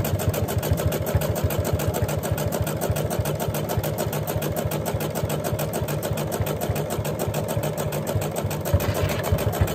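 Electric sewing machine running a continuous zigzag stitch through cotton fabric and batting layers: a fast, even mechanical clatter of needle strokes at a steady speed.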